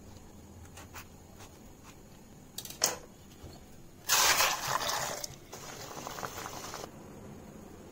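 Water rushing and bubbling in a steel pot of whole scored tomatoes being blanched for peeling. There is a sharp knock about three seconds in, then a loud rush of water for about a second, which settles into quieter bubbling that stops about a second before the end.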